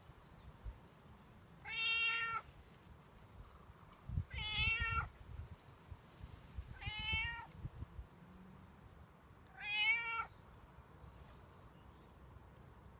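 Domestic cat meowing four times, one call every two to three seconds, each under a second long: the cat asking for food.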